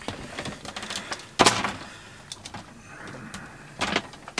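Handling noise from a coiled electrical cable being worked by hand: scattered small clicks and rattles, with a louder brief rustling scrape about one and a half seconds in and a shorter one near the end.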